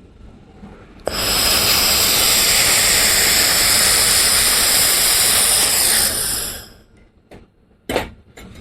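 Handheld fiber laser welder running a weld on 1 mm stainless steel with wire feed: a loud steady hiss with high whining tones starts abruptly about a second in and stops after about five seconds. A couple of short clicks follow near the end.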